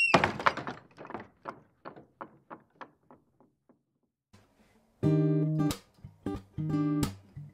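A string of fading clicks, about three a second, dies away in the first few seconds. From about five seconds in, an acoustic guitar is strummed in chords, with short percussive muted strokes between them, opening a song.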